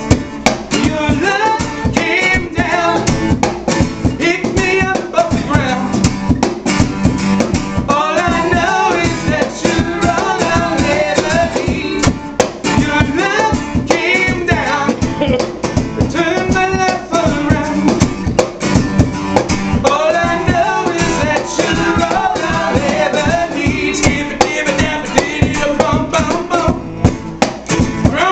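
Live acoustic band music: a strummed acoustic guitar and a steady cajon beat, with singing over them.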